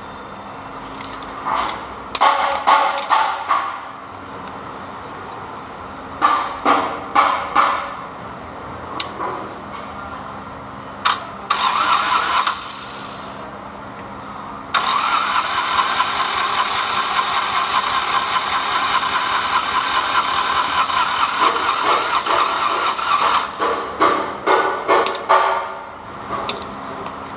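Kubota D905 three-cylinder diesel being cranked by its starter in several short bursts, then one long crank of about nine seconds, then more short bursts: a hard-starting engine struggling to fire.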